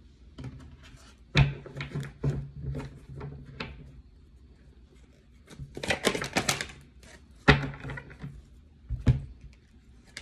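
Tarot cards being handled and set down on a table: scattered taps and knocks, with a quick run of clicks about six seconds in.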